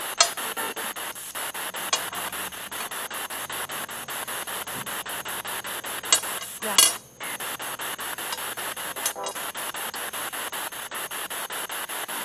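Spirit box scanning through radio stations: a steady static hiss chopped into rapid, even pulses by the sweep, with a few sharp clicks. About seven seconds in there is a louder crackle and a moment's drop-out.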